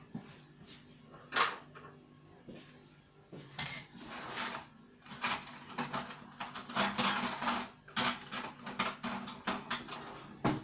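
Spoon clinking and scraping against a pot and containers as an ingredient is measured out: a run of irregular clicks and scrapes, busiest in the middle, over a faint steady hum.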